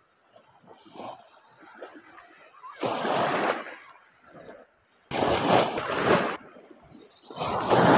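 Small waves splashing against the shore close by, surging three times at intervals of about two to three seconds, with a couple of sharp clicks just before the last surge.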